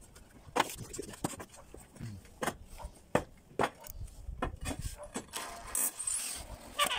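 Ceramic roof tiles clacking and knocking against each other and the timber battens as they are set in place, a series of sharp knocks. Near the end a cordless drill runs briefly, driving a screw down through a tile.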